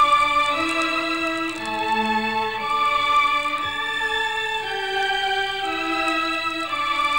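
Background music of held, organ-like keyboard notes. The notes and chords change every half second to a second, with no beat.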